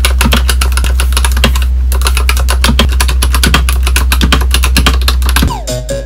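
Fast, continuous typing on a mechanical keyboard: a dense stream of plastic key clacks with a low hum underneath. The typing stops about five and a half seconds in and background music takes over.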